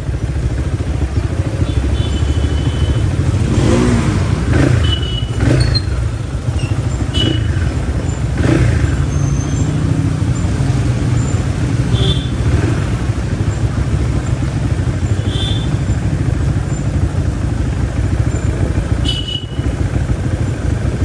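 Crossfire RM250 motorcycle engine running steadily while riding, its pitch rising and falling a few times.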